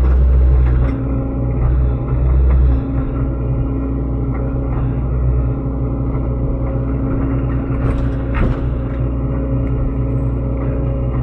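SANY SY75C excavator's diesel engine running steadily, its low note swelling twice in the first three seconds as it takes load. A few sharp knocks come about eight seconds in.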